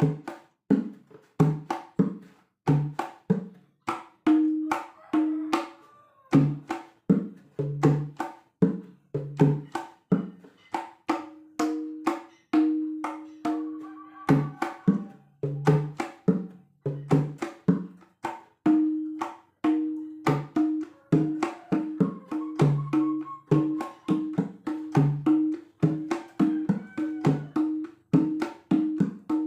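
Gendang hand drum played in a steady rhythm of about two strokes a second, alternating deep low strokes with higher ringing ones. Some of the higher strokes hold their tone for a second or more.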